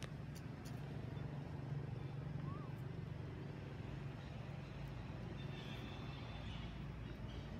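A steady low hum, like a distant engine, over faint outdoor background noise, with a couple of faint clicks near the start.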